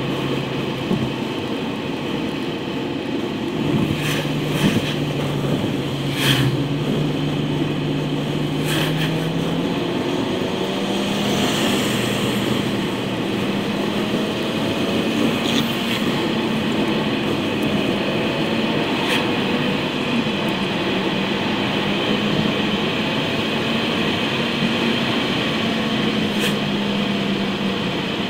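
Car engine and tyre noise inside the cabin while driving at road speed. The low engine hum rises in pitch about ten seconds in and then holds steady, with a few sharp knocks from the car over the road.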